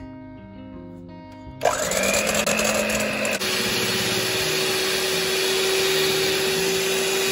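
Electric hand mixer switching on about one and a half seconds in, whining up to speed, then running steadily as its beaters whip eggs in a stainless steel bowl. Its whine changes pitch abruptly a little after three seconds, and it stops at the end. Background music plays underneath.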